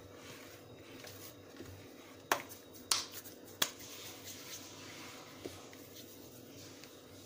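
Oiled hands tearing off and rolling soft bhature dough into balls: quiet handling sounds, with three sharp slaps of dough between the palms between about two and four seconds in, roughly half a second apart.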